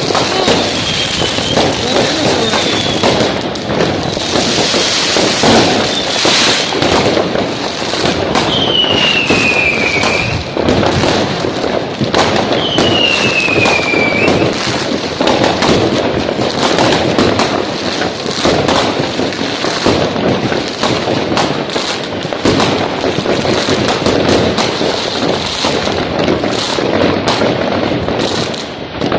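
Fireworks and firecrackers going off without pause: a dense rattle of bangs and crackling. Three times, a whistle falls in pitch over a second or two, once at the start and twice around the middle.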